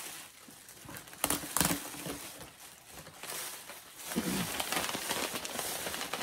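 Papers and stamp sheets rustling and crinkling as they are handled, with a few sharp, louder crackles about a second and a half in.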